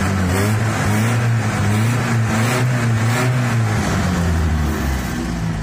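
The exhaust of a 1972 Land Rover Series III's 2.5-litre petrol engine, heard at the tailpipe while the engine is run up to check for exhaust smoke. The revs rise in the first second, hold steady for several seconds, and fall back near the end.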